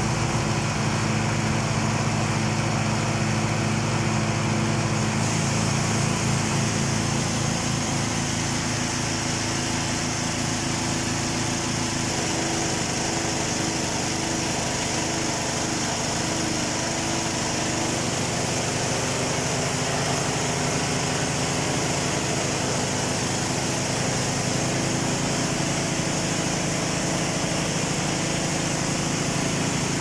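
A 3 kW remote-start portable generator's engine running steadily under a heavy load of about 2.8 kW.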